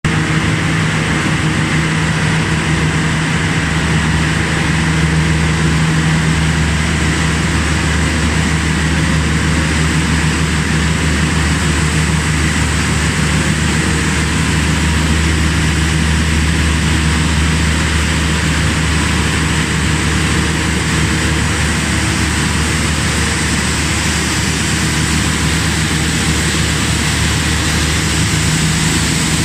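Plastic recycling and pelletizing line running: a loud, steady machine drone made of a low hum and a high whine over a dense rush of noise, from the extruder's drive motor and gearbox, the feeder and the blowers.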